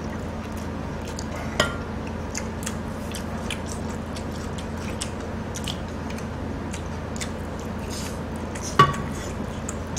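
Utensils clinking sharply against a dish twice, once about a second and a half in and again near the end, over faint eating sounds and a steady low hum.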